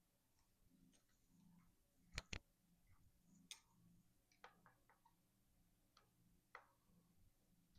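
Faint, scattered small clicks and taps from hands working tools and bike parts, with a sharp double click about two seconds in and a few lighter ticks after.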